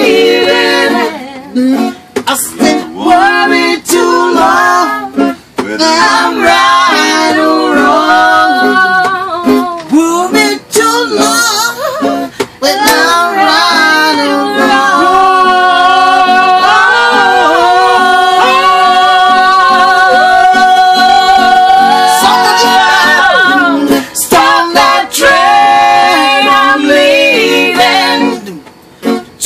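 Impromptu singing to an acoustic guitar, a woman's voice leading, with long held notes in the middle.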